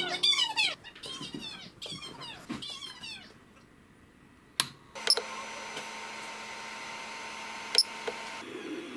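Quick swooping, warbling sounds fade out over the first three seconds. Then a click as a Creality Ender 3 3D printer is switched on, and its fans and power supply start a steady hum with a faint whine, with two more clicks from its control knob as the bed begins heating.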